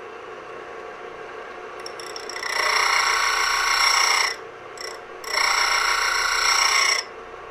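Steel twist drill bit ground against the spinning abrasive disc of a disc sander: two grinding passes of about two seconds each with a brief touch between them, over the steady run of the sander's motor. The bit's lip is being dressed because it was ground heavy on one side.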